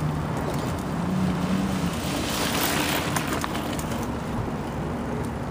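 Wind noise on the microphone, with a mountain bike riding past on a dirt trail; its tyres rush over the loose dirt loudest about two to three seconds in, with a few small clicks and rattles.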